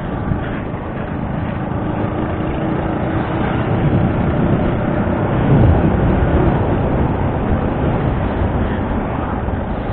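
Motorcycle riding along a road: wind rush over the camera microphone with the engine running underneath, building a little over the first few seconds.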